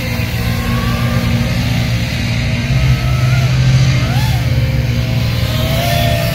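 FPV freestyle quadcopter's brushless motors and propellers whining, the pitch swinging up and down as the throttle changes.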